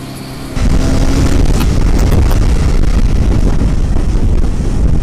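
Heavy wind buffeting on the microphone of a Honda CBR150R motorcycle at riding speed, with the bike's engine running under it. The buffeting cuts in abruptly about half a second in; just before that, the single-cylinder engine runs steadily at low speed.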